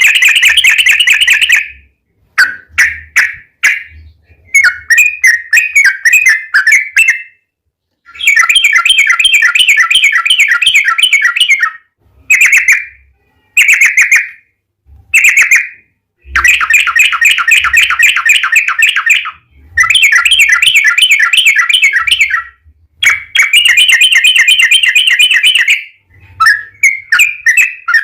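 Yellow-vented bulbul (trucukan) singing loud, long rapid chattering rolls ('ropel'): about eleven phrases of fast-repeated notes, each one to three seconds long, with short pauses between them.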